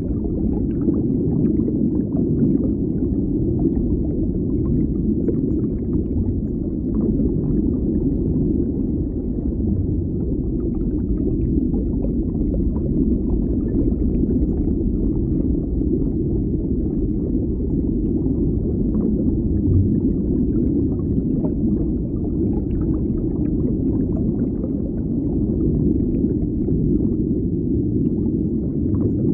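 Deep underwater ambience: a steady low, muffled rumble, with faint scattered crackles and ticks above it.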